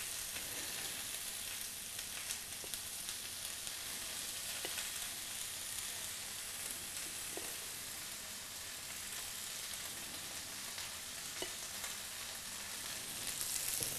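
Spinach sautéing in a frying pan, a steady quiet sizzle, with a few light clicks of metal tongs against a plate.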